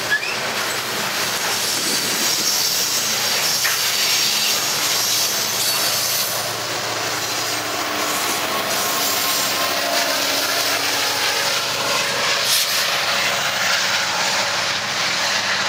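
Loaded coal train rolling by close at hand, with a steady rush of steel wheels on the rails under the hopper cars. About halfway through, a BNSF SD70MAC diesel-electric locomotive running as a distributed-power unit passes.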